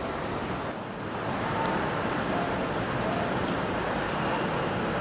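Steady rumbling noise of model trains running on a large layout, mixed with the background noise of the exhibit hall.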